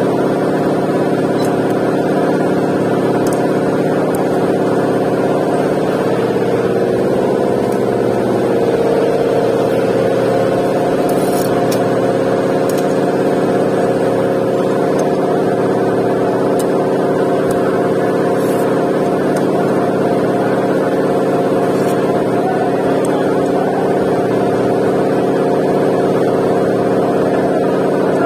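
Engine running at a steady speed, its pitch wavering briefly about seven seconds in.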